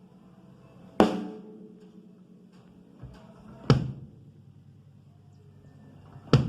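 Pearl Export EXL drum kit being sound-checked: single drums struck one at a time, three loud hits a few seconds apart, each left to ring out, with a softer low hit before the second.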